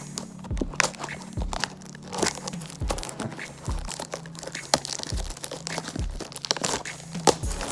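A Topps Chrome trading-card pack being torn open by hand: the wrapper crinkles and crackles in quick, irregular sharp strokes. Background music with a steady beat plays underneath.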